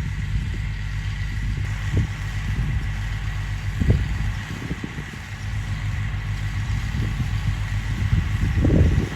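Tractor engine running steadily with a thin steady whine above it while baling hay, and a few scattered knocks, the loudest near the end.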